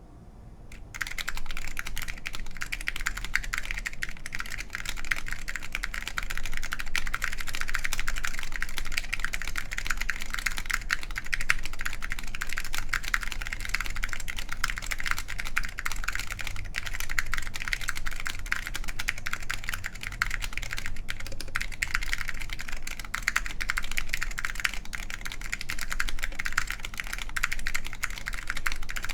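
Continuous typing on an ai03 Lunar II mechanical keyboard with wax-boiled SKCL Green Alps linear switches in a full aluminium plate and Apple Extended Keyboard II keycaps: a dense, unbroken run of keystroke clacks that begins about a second in.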